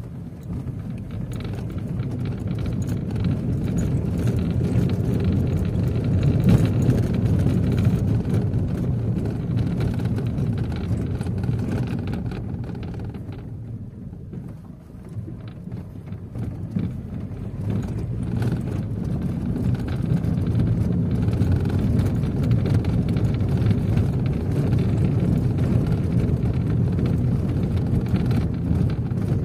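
Car cabin noise while driving slowly over a cobblestone street: a steady low rumble from the engine and tyres, with a constant patter of small knocks and rattles from the uneven stones. It eases off about halfway through, then builds up again.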